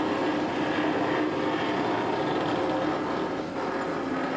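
Large auger drilling rig running: a steady, even machine drone with a faint steady hum under it.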